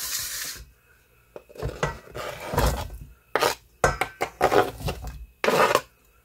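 A knife scraping chopped hard-boiled egg and cucumber off a plastic cutting board into a stainless steel mixing bowl, as a series of short scrapes and taps.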